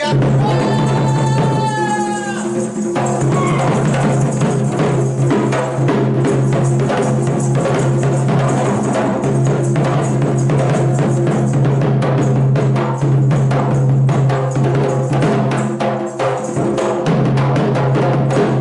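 Instrumental folk music with fast, dense drumming over a steady low drone. A short sliding melodic phrase comes in the first few seconds.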